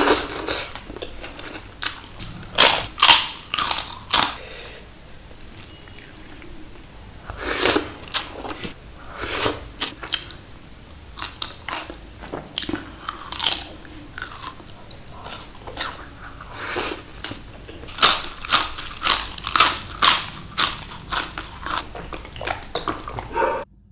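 Close-miked eating: crisp crunches of a person biting and chewing crunchy food, coming in irregular clusters with quieter stretches of chewing between them, stopping abruptly just before the end.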